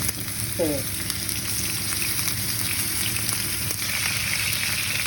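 Food sizzling steadily in a hot frying pan.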